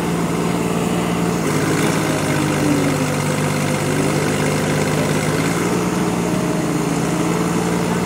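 Farm diesel engine running steadily, its low note shifting for a few seconds in the middle.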